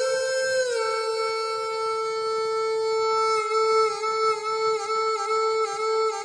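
Phu Tai reed pipe (pi Phu Tai) playing a slow melody on long held notes: the note steps down slightly under a second in, then is held with quick little dips and trills through the second half.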